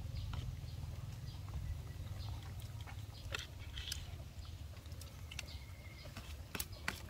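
Eating sounds: close chewing with scattered small clicks and ticks of chopped fruit being picked from a plastic plate, over a low steady rumble.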